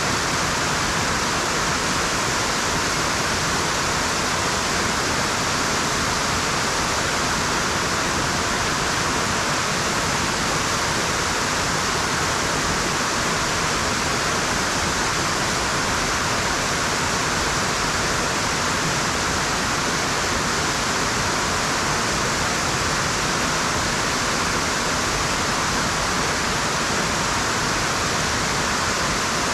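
Waterfall rushing, a steady, unchanging noise of falling water.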